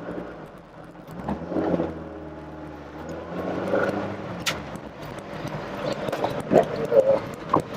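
Rover Metro's 1.8 K-series VVC four-cylinder engine running on the move, heard from inside the cabin. The engine note holds steady for a couple of seconds about a second in, then changes.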